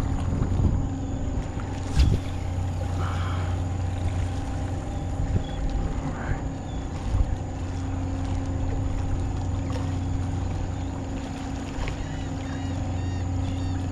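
An engine running steadily: a constant low drone with a few unchanging higher tones over it. A single short sharp knock sounds about two seconds in.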